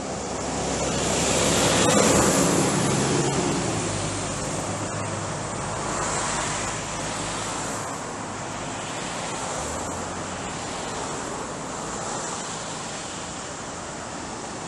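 Wind rushing over the microphone, swelling to its loudest about two seconds in and then settling to a steady rush.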